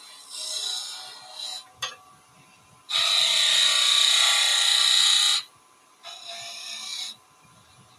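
Skew chisel cutting across the end face of a small piece of wood spinning on a lathe, a hissing scrape. A few short cuts come first, then a louder, steadier cut of about two and a half seconds starting about three seconds in, and a shorter one near the end.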